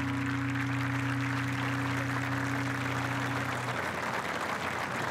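The last chord of an acoustic guitar ringing out and dying away about three and a half seconds in, under steady applause from a large outdoor crowd.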